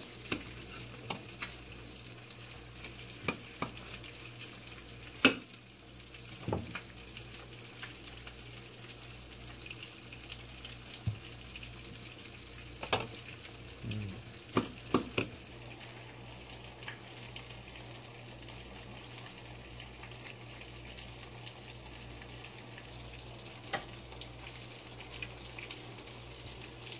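Breaded fish frying in a pan, a steady sizzle. A knife knocks and clinks on a plate a few times as a lemon is cut; the sharpest knock comes about five seconds in, and a quick cluster follows around fourteen to fifteen seconds in.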